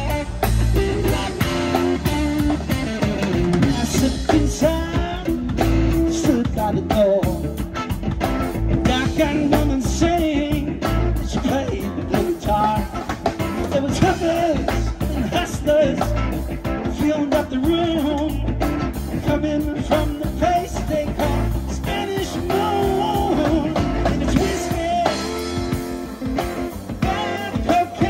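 Live rock trio playing an instrumental passage: electric guitar through a Marshall amp, electric bass guitar and drum kit.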